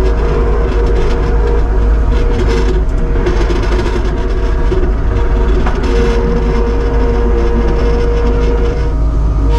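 Kubota SVL75-2 compact track loader running under way, its diesel engine droning steadily with a constant high whine over it.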